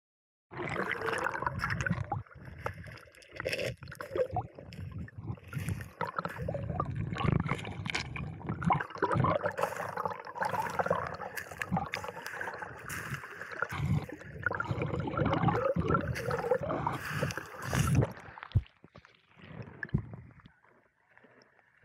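Sea water sloshing and gurgling close by in uneven surges, dropping much quieter near the end.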